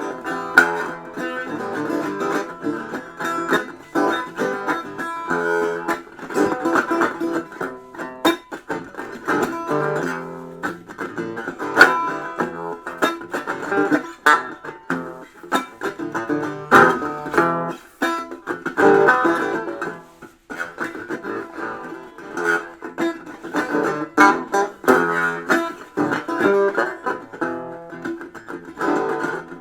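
Instrumental music on a picked plucked-string instrument of the guitar family, a steady run of quick notes with sharp attacks and a brief drop-out about two-thirds of the way through.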